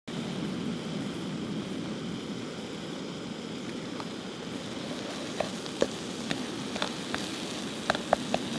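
Blueberry sauce sizzling and bubbling in a pan over a stove: a steady frying hiss, with sharp pops and crackles that come more often from about halfway through.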